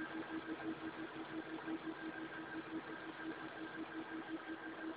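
A DC-motor-driven two-stage aluminum gear train running steadily. It makes a hum with a constant low whine and a fainter high whine, pulsing evenly several times a second. The gear train has a damaged gear tooth.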